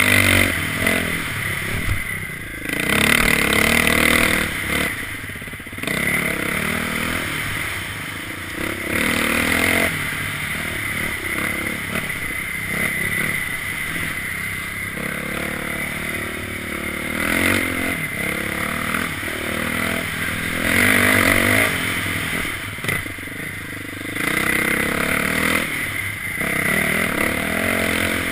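Dirt bike engine revving up and down as it is ridden along a trail, its pitch rising and falling repeatedly with the throttle.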